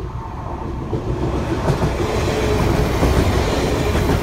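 Northern Ireland Railways diesel multiple unit passing close by over a level crossing. Its rumble builds up about a second in, with a few sharp wheel knocks and a short steady whine in the middle.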